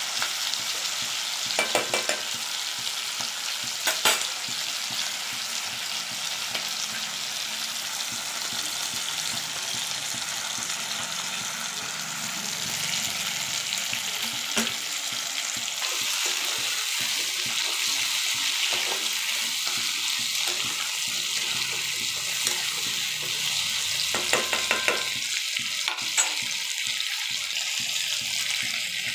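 Chopped onions, tomatoes and cashews with cumin seeds sizzling steadily in hot oil in a nonstick wok. A spatula clicks and scrapes against the pan now and then, with a cluster of clicks near the end.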